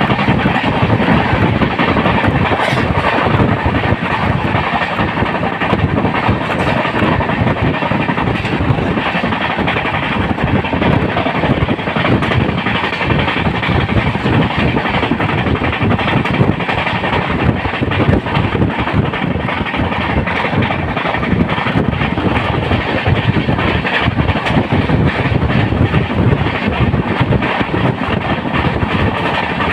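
Janshatabdi Express passenger train running on the track: a loud, steady rumble of wheels on the rails, with a dense run of small clicks.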